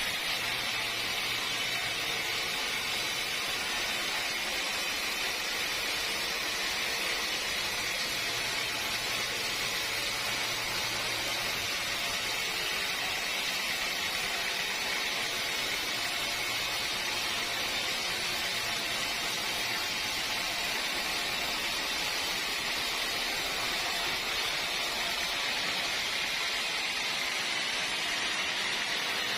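Sawmill machinery running with a steady, even hiss that does not change.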